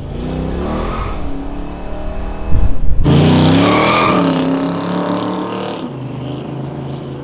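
A 625 hp LS V8 in a 1985 Chevy S10 pickup revving hard, first heard from inside the cab as it accelerates. A few short, loud thumps come just before a louder stretch of engine revving and rear tyres squealing in a burnout, which fades as the truck pulls away.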